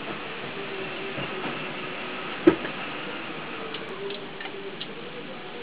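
Steady background hiss with a faint low hum. One sharp click comes about two and a half seconds in, and a few light ticks come near the end.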